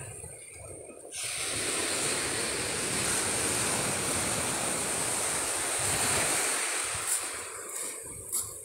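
Sea surf breaking and washing onto a pebbly beach, a steady rush that swells up about a second in and eases near the end, with wind buffeting the microphone.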